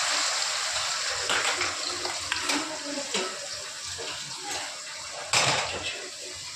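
Water running or pouring, loud at first and gradually fading, with a few knocks and clatters, the sharpest about five seconds in.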